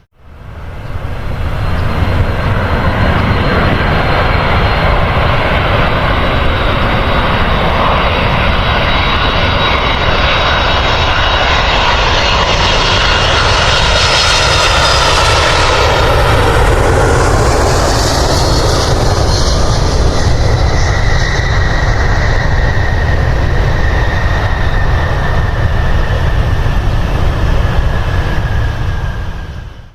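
Airliner engines passing close by, a loud rushing roar with a whine whose pitch sweeps down as the aircraft goes past about halfway through.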